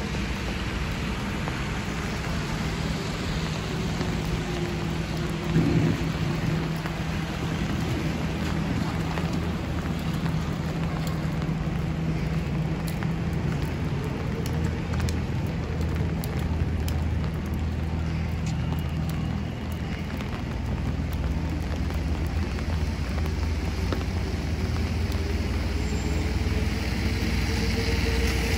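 Steady rain hissing on wet pavement over the low rumble of city traffic and buses. A short thump comes about six seconds in, and a bus grows louder near the end as it draws close.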